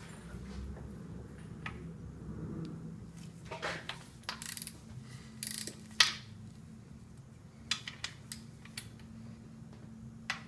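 Ratchet wrench on the crankshaft snout of a bare 5.7L HEMI block clicking as the crank is turned, with metal-on-metal clinks. There is one loud clack about six seconds in.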